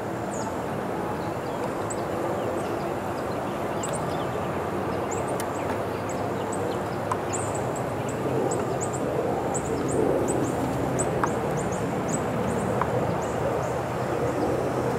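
Honeybees buzzing around an opened hive, a steady hum that swells slightly about two thirds of the way through, with short high bird chirps over it.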